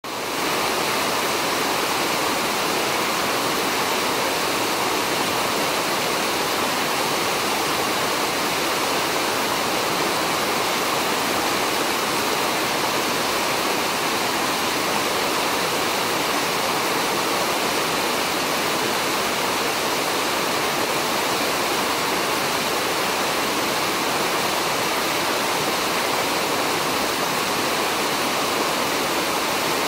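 Steady, unbroken rushing of running water, even in level throughout.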